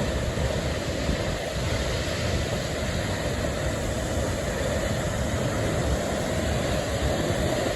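Large waterfall: a steady, loud rush of falling water with a low, uneven rumble beneath it.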